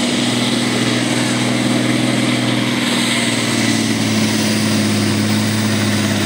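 Farm tractor's diesel engine running steadily under load as it pulls a weight-transfer sled in a tractor pull.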